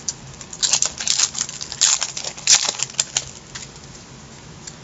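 Crinkling and clicking from trading cards and their pack wrapper being handled: a string of short crackles over about two and a half seconds, then only faint room hum.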